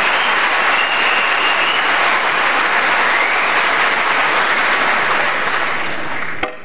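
Audience in a snooker arena applauding a difficult pot. The clapping is steady and dies away near the end, where a single sharp click is heard.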